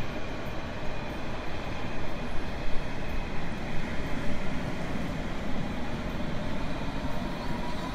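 Train running along the track: a steady rumble and rushing noise with no pauses, and a faint thin wheel whine rising near the end.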